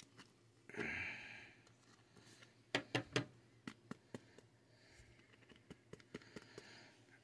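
A short breath out about a second in, then a quick cluster of sharp clicks and taps around three seconds and a few lighter ticks after, from hands working trading cards out of plastic sleeves.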